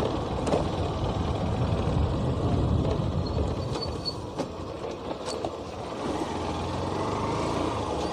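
Small commuter motorcycle's engine running at low speed, with rumble from the road and wind on the microphone. It eases off about four seconds in, then settles into a steady low hum.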